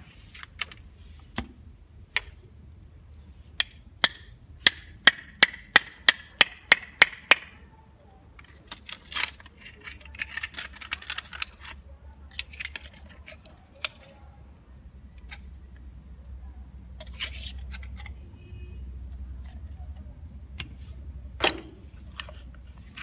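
A knife blade cracking and cutting open giant African land snail shells: a run of sharp clicks about three a second, then irregular scraping and crunching as the shell is cut away, and one more loud crack near the end.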